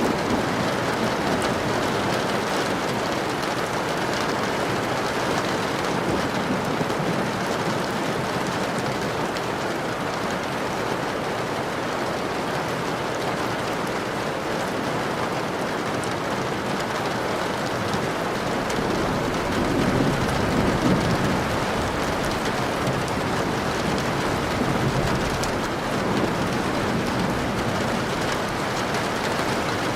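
Steady rain falling, with a low rumble of thunder swelling and fading about twenty seconds in.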